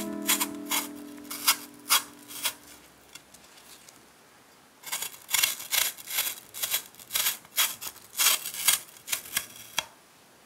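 Wüsthof chef's knife paring the skin off an apple held in the hand: short, crisp rasping strokes as the blade cuts through the peel. A few strokes come in the first two seconds, then after a pause a steady run of about three strokes a second.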